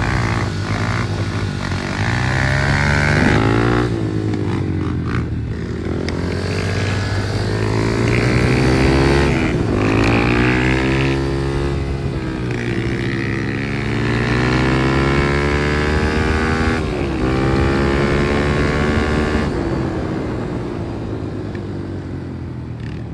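Kawasaki KLX110 pit bike's small single-cylinder four-stroke engine being ridden on a test run. The engine revs up and eases off again and again, its pitch climbing and falling every few seconds.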